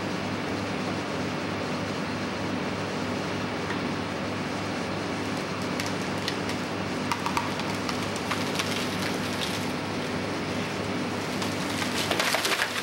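An engine running at a steady speed, with scattered crackling and snapping from about seven seconds in that grows denser near the end.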